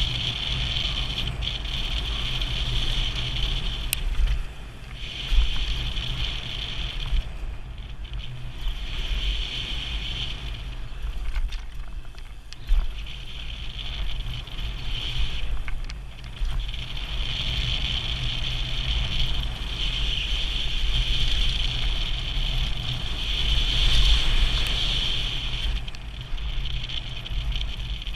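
Mountain bike ridden fast downhill on a dirt and gravel trail, heard from a helmet-mounted camera: heavy wind rumble on the microphone and tyres rolling over the loose surface, with a high buzz that comes and goes and a few sharp clicks.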